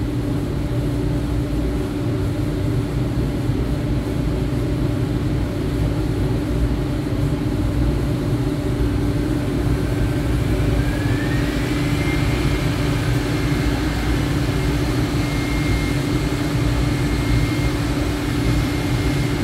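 Three-phase fine dust extractor running steadily with a constant hum, loud enough to drown out speech. About ten seconds in, a high whine from the CNC router machine rises in pitch over a second or so and then holds steady.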